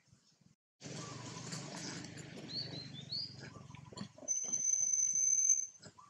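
A baby long-tailed macaque gives short rising squeaks, then one long, high-pitched, steady scream about four seconds in that lasts about a second and a half and is the loudest sound. A rough hiss of background noise runs under it from about a second in.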